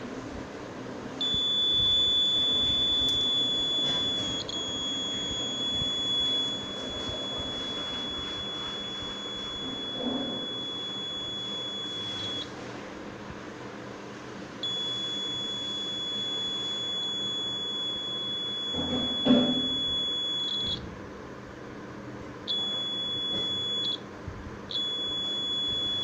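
Small piezo buzzer of a one-transistor wire-break alarm sounding a steady high-pitched tone, set off because the thin sensing wire loop has been cut. It sounds in long stretches and stops several times, typical of the cut wire ends being touched back together, with a couple of handling knocks.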